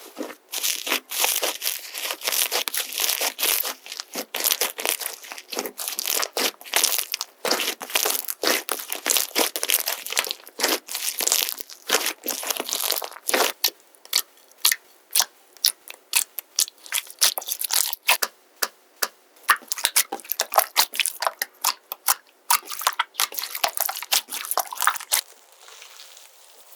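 Soft glossy slime being poked, pinched and squeezed by hand, giving a dense run of crackling and popping clicks that stops near the end.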